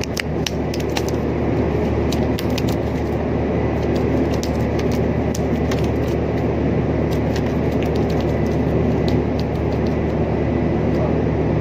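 Steady low hum of a large ship's machinery, with scattered light clicks and taps over it.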